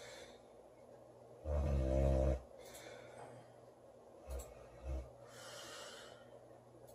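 A girl snoring in her sleep: one loud, low snore about a second and a half in, lasting just under a second. Two short low puffs and a soft breath follow in the second half.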